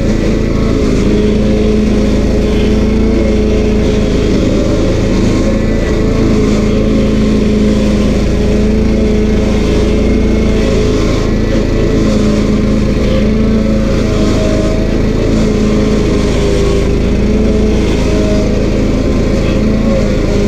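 Stump grinder's 13 HP Honda engine running steadily, loud and unbroken throughout.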